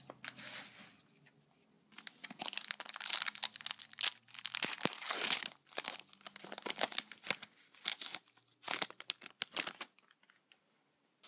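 Foil Pokémon trading card booster pack wrapper crinkling and tearing as it is ripped open by hand. It is a run of irregular crackles that starts about two seconds in and stops shortly before the end.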